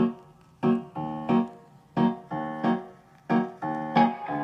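Recorded music played through a homemade ammo-can speaker: short electric-piano chords repeating in a steady rhythm, about three every two seconds.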